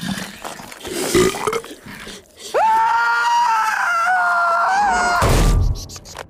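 A long, high scream that swoops up sharply about two and a half seconds in and is held for about two and a half seconds, wavering in pitch, then breaks off into a short, low rumbling blast.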